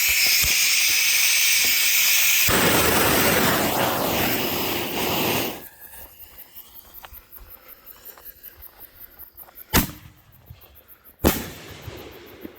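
Loud steady hiss of a firework fuse being lit and burning, getting wider and louder a few seconds in, then cutting off abruptly. Two sharp firework bangs come about a second and a half apart near the end.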